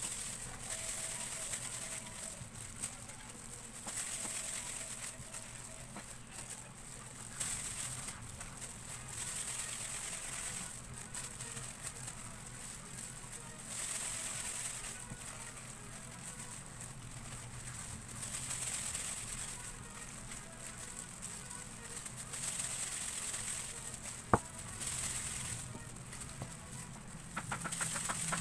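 Plastic food-prep gloves crinkling and rustling in repeated bursts as gloved hands squeeze and knead a crumbly graham-cracker mixture in a bowl, over a low steady hum. A single sharp click sounds about three-quarters of the way through.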